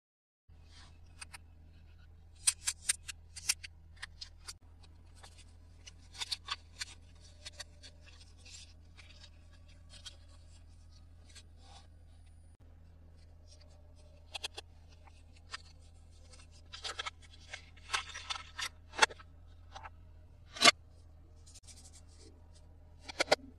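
Toy packaging and plastic toy pieces handled during an unboxing: irregular sharp clicks and rustles in short clusters, the loudest near the end, over a steady low hum.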